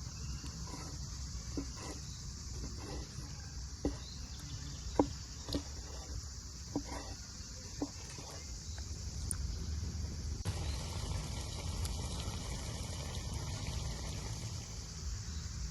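Steady high-pitched chirring of crickets, with a handful of short sharp knocks in the first half. The background changes abruptly about ten seconds in.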